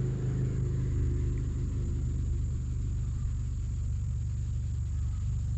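Steady low mechanical hum, like an engine or motor running at an even speed, with a faint steady high tone above it.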